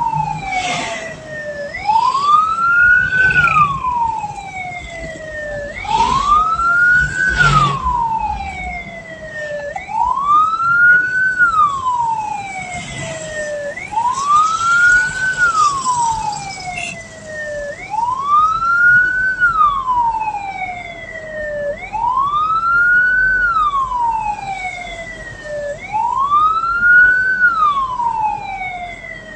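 Hearse's electronic siren wailing in slow cycles, about one every four seconds, each rising quickly in pitch and falling away more slowly.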